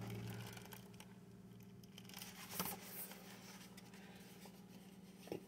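Faint rustling of a hardcover book's paper pages being handled and turned, with a few small ticks, the clearest about two and a half seconds in, over a steady low hum.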